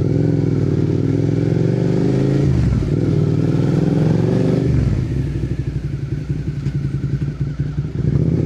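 Suzuki SV650's V-twin engine through an aftermarket, cat-deleted exhaust, heard onboard while riding. It accelerates with rising pitch, drops at a gear change about two and a half seconds in and pulls again, then rolls off the throttle with an uneven, choppy burble from about five seconds in, and pulls once more near the end.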